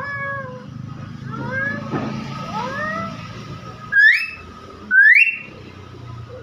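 Nias hill myna calling: a run of arching whistled notes, then two loud rising whistles about a second apart.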